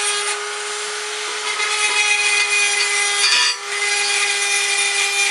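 Wood router's motor running at high speed, driving a burr cutter that grinds by hand. It gives a steady whine over a grinding hiss, which gets louder about a second and a half in and dips briefly about three and a half seconds in.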